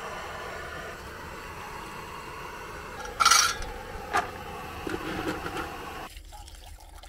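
Gas canister camping stove burning with a steady hiss, which cuts off abruptly about six seconds in. Dry dog kibble rattles into bowls, loudest about three seconds in, with a click and smaller clatters after.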